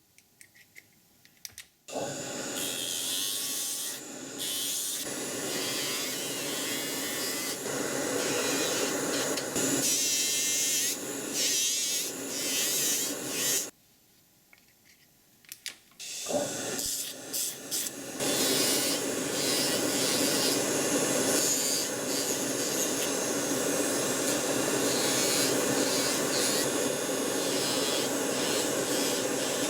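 Dental-lab power tool running on the plastic splint, grinding and trimming. It starts about two seconds in, varies and stops for a couple of seconds around the middle, then runs steadily.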